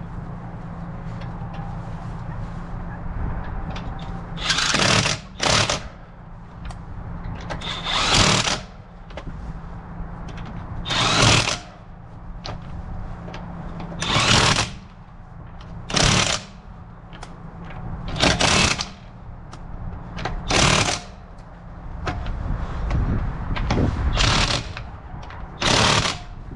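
Impact wrench fitted with torque sticks hammering lug nuts tight on a car wheel, in about ten short bursts of half a second to a second, a few seconds apart, over a steady low hum.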